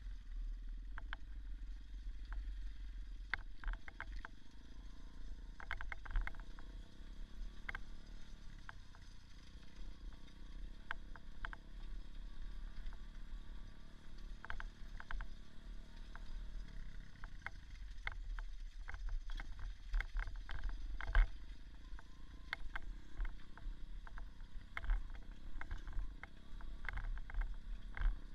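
Small Irbis dirt bike engine running, a steady low rumble whose pitch shifts partway through, with frequent sharp knocks and rattles throughout.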